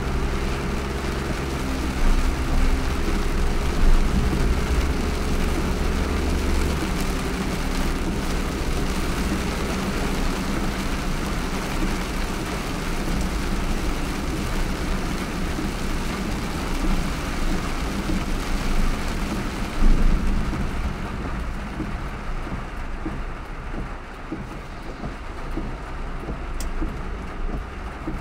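A car driving through a heavy downpour: a steady hiss of rain and wet road noise, with a low engine hum that holds steady for the first several seconds and then breaks up.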